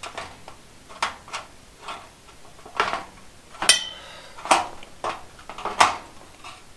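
Sheet-metal cover of a fluorescent light fixture clanking against the fixture housing as it is pressed and shifted into place: a string of separate metallic knocks, one a little before the middle ringing briefly.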